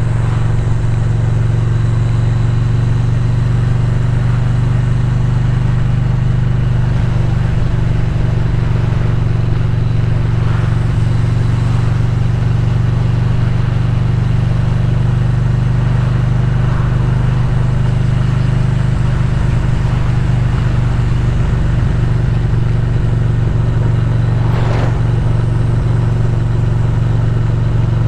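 Motorcycle engine running steadily at cruising speed, mixed with wind and road noise on the bike-mounted microphone.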